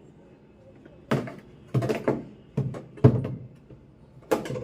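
A metal tool knocking and clattering inside the spin-dryer tub of a twin-tub washing machine while a handkerchief jammed beneath the drum is prised at. There are sharp knocks at uneven intervals, several in quick succession near the middle and two close together near the end.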